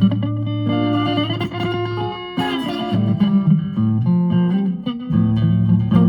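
Electric guitar played country style with a twangy tone: picked single notes and double-stops with string bends, over held low notes.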